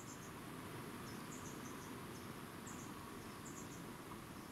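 Quiet forest ambience at a wild boar bait site: a faint steady hiss with short, very high-pitched chirps in little groups of two or three, recurring every second or so.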